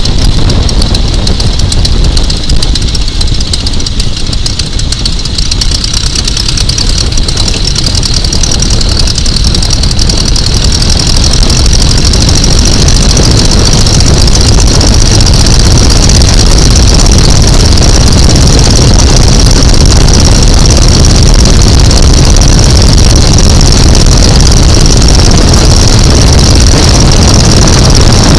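Boeing Stearman biplane's radial engine running steadily at low power, heard close up. It is loud throughout and gets a little louder from about ten seconds in.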